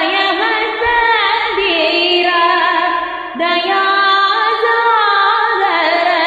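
A woman singing a Kannada devotional song in Carnatic style, set in raga Reeti Gaula. She sustains gliding, ornamented notes over a steady drone.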